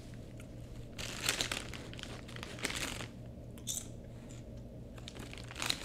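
A plastic potato-chip bag crinkling in several separate bursts as a hand rummages in it for chips.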